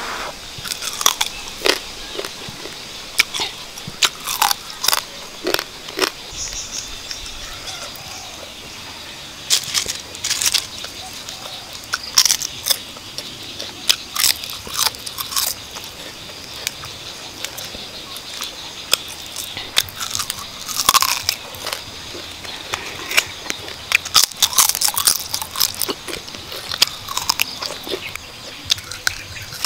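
A person chewing and crunching roasted quail and fresh orange leaves: irregular crisp bites and crunches, close to the microphone.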